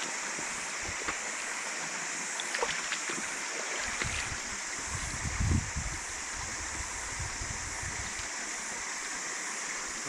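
Steady rush of a shallow, clear stream running over stones, with a low rumble of wind on the microphone roughly halfway through.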